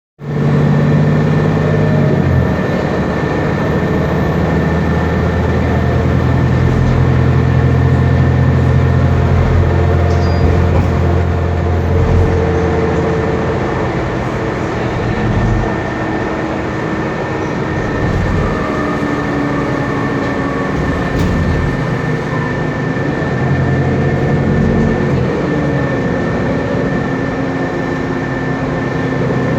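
Otokar Kent LF city bus's Cummins ISB Euro 6 diesel engine running, with the air conditioning on. A steady high whine runs throughout. The low engine hum holds steady, changes about twelve seconds in, and later rises and falls in pitch as engine speed changes.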